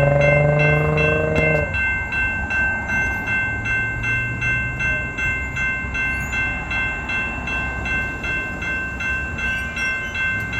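Commuter rail locomotive horn sounding a chord, rising slightly in pitch, that cuts off about a second and a half in. A grade-crossing warning bell then rings about twice a second over the low rumble of the passing train.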